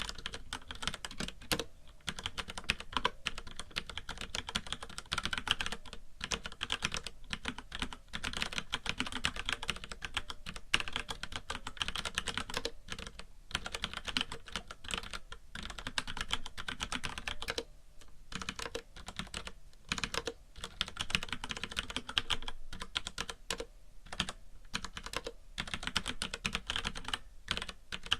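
Fast, continuous typing on a FILCO Majestouch mechanical keyboard with Cherry MX Brown switches: a dense clatter of key clicks, broken by brief pauses, with a faint hiss of white noise.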